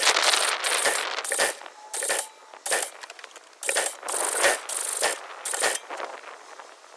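Metallic clattering in a run of about nine short, sharp bursts with brief gaps between them.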